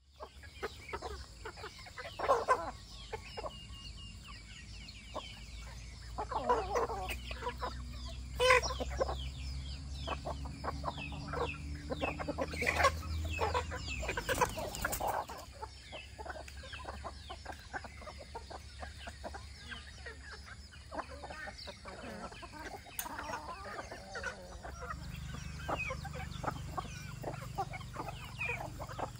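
Chickens clucking in a run of short, sharp calls. A low hum with a slowly rising pitch runs under them and stops about halfway through.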